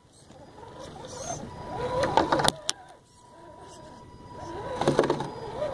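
Axial SCX10 RC crawler's electric motor and geartrain whining, the pitch wavering with the throttle as it crawls. The whine builds up, drops out about three seconds in, then builds again, with a few sharp clicks.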